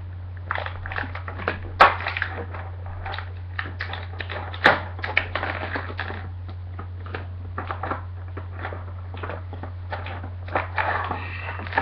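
Crinkling and crackling of a Beyblade's plastic packaging being handled: a clear plastic blister and a white plastic insert tray. Irregular small clicks throughout, with two sharper snaps about two seconds in and just under five seconds in, over a steady low hum.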